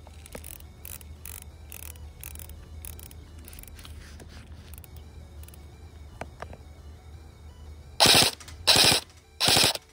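Airsoft electric gun firing short full-auto bursts: three loud bursts of rapid shots, each about half a second long, in the last two seconds. Before them there is only a low hum with faint light clicks.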